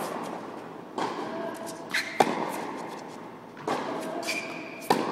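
Tennis rally on an indoor court: a tennis ball struck by rackets and bouncing, a series of sharp knocks that echo around the hall. The loudest hits come a little over 2 s in and again near the end, with softer knocks about 1 s in and near 3.7 s.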